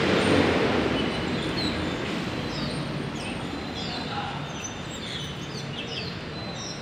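Low rumble of a passing vehicle, loudest at the start and fading away, with small birds chirping in short falling notes from about two and a half seconds in.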